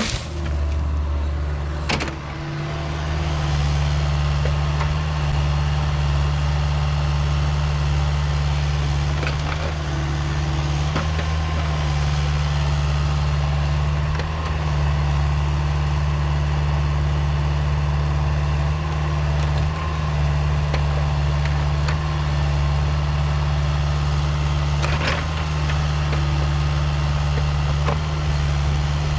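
Diesel engine of Caterpillar heavy equipment running steadily at a constant speed, with a few brief knocks along the way.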